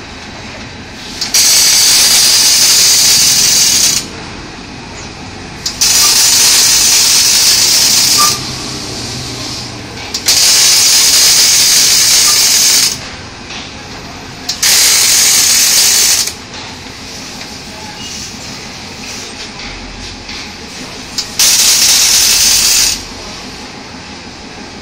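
Automatic gantry arc-welding machine laying five welds in turn, each weld a loud, steady hiss of the arc lasting two to three seconds, with quieter machine background between welds.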